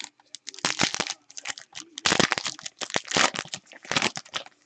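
Foil trading-card pack wrapper being torn open and crumpled, in several loud crinkling bursts.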